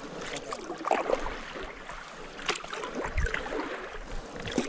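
Stand-up paddleboard paddle dipping and pulling through calm water, about three strokes a couple of seconds apart, with splashing and dripping water.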